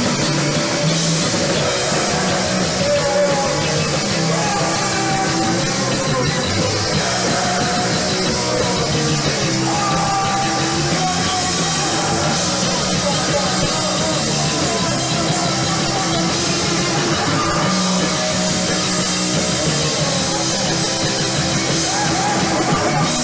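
A punk rock band playing live: loud distorted electric guitar, bass and drum kit playing together.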